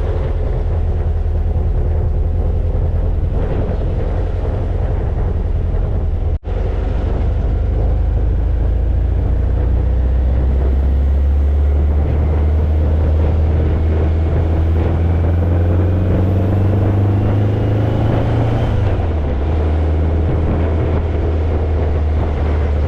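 1967 dune buggy's engine running steadily while under way, with a heavy low rumble. Its pitch climbs slowly through the middle and drops back near the end, with a brief break about six seconds in.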